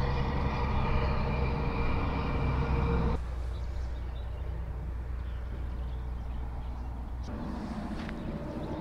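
A motor running steadily, a low drone with steady higher tones over it. The higher tones drop away abruptly about three seconds in, leaving the low drone, and come back near the end.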